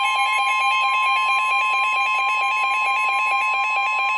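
Emergency Alert System attention tone: a loud, steady, shrill electronic alarm made of two held pitches with a fast, even flutter. It signals that an emergency alert, here a flash flood warning, is about to be read.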